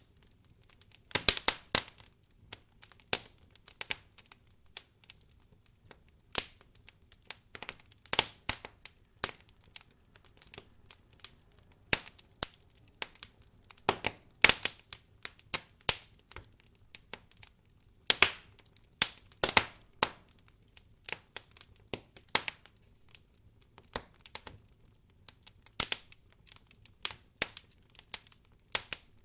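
Campfire of burning firewood crackling and popping: irregular sharp snaps, sometimes several in quick clusters, over a quiet background.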